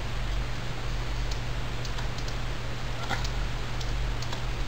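Computer mouse and keyboard clicking faintly and irregularly, about ten clicks, as a logo is dragged and scaled with Shift held, over a steady low hum and hiss from the recording.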